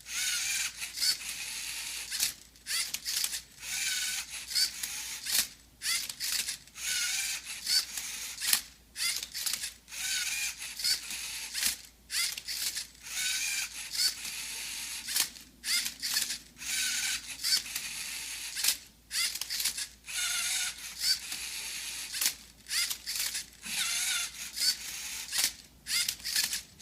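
Rubik's cube solver robot working through its solve: a long run of short mechanical moves, about one a second with brief pauses between, as its motors turn and flip the plastic cube.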